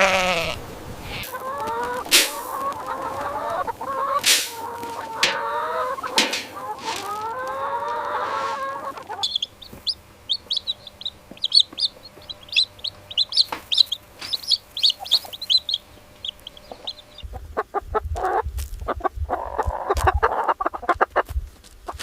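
Chickens clucking, a run of repeated pitched calls. About nine seconds in, they give way to a long stream of short, high chirps. Near the end come scattered knocks and low thumps with another call.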